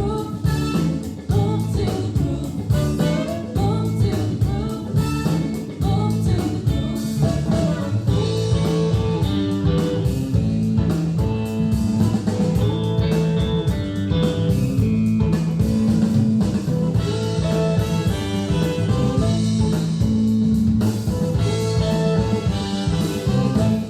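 A song with singing, guitar and drums played back through Monitor Audio Monitor 3 three-way floor-standing loudspeakers at a steady, fairly loud level.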